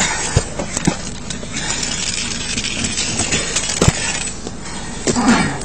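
Handling noise on a body-worn camera: continuous rustling as it rubs against clothing, with small clinks of gear and two sharper knocks, about half a second in and again near four seconds in.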